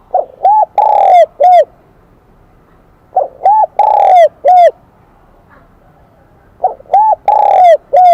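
Spotted dove cooing in the high, clear 'kim đồng' voice: three phrases about three and a half seconds apart, each of four notes with a longer third note. The last phrase is cut off at the end.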